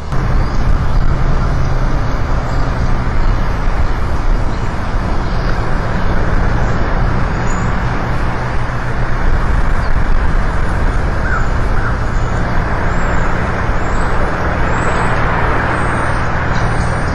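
Loud, steady rushing outdoor noise picked up by a nest camera's microphone, with a low hum underneath. A few faint, short high chirps come in the second half.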